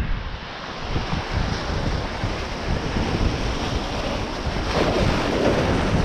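Surf breaking and washing over rounded boulders at the water's edge, with wind buffeting the microphone; a wave surges in about five seconds in.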